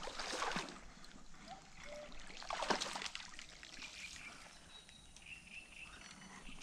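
A hooked fish splashing and thrashing at the water's surface in two bursts, one about half a second in and a louder one near three seconds.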